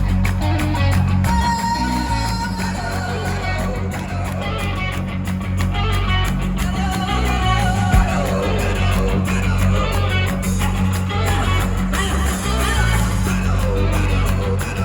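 Rock band playing live: electric guitars over heavy bass and drums, continuous and loud, with a single sharp thump about eight seconds in.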